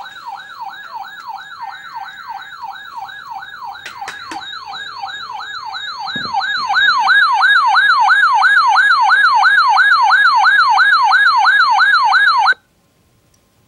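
Electronic siren sounding a fast yelp, its pitch sweeping up and down about three times a second. It gets louder about seven seconds in, then cuts off abruptly near the end.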